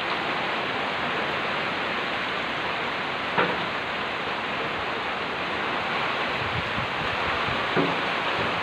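Heavy rain pouring down in strong wind, a steady loud hiss with gusty low rumbles on the microphone. Two short sharp knocks cut through it, about three and a half seconds in and near the end.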